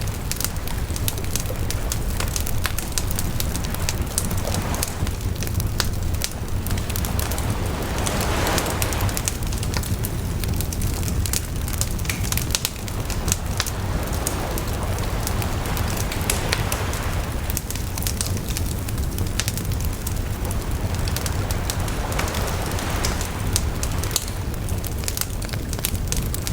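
Wood campfire crackling and popping steadily, with ocean waves washing ashore in slow swells about every seven or eight seconds over a low steady rumble.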